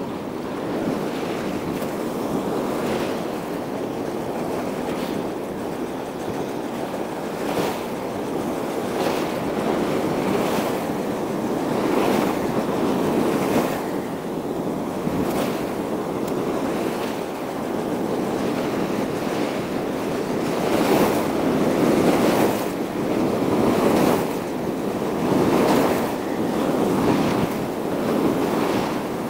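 Sea waves washing against a rocky shore, swelling and falling every few seconds, with wind buffeting the microphone.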